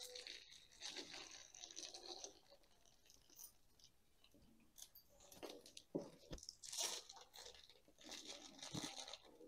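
Faint, scattered crunching and rustling of potting soil as a small rooted cutting is tipped out of its nursery pot and its root ball is handled.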